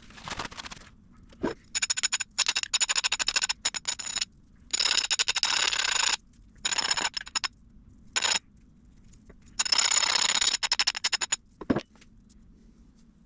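Precision Matthews PM-25MV benchtop mill's end mill cutting the edge of a small metal part in about five bursts of harsh cutting noise, the longer ones carrying a high ringing whine, between quieter stretches where only the spindle hums.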